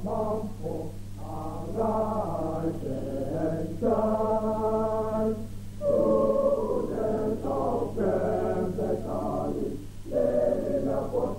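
A large group of male students singing together in a chanted song, phrases breaking off every second or two. A steady low hum runs underneath.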